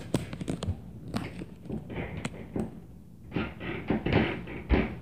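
Irregular knocks and thumps of footsteps stomping on the floor of the flat upstairs, heard through the ceiling. There are heavy low thuds about a second in and near the end, with stretches of muffled scuffing noise between them.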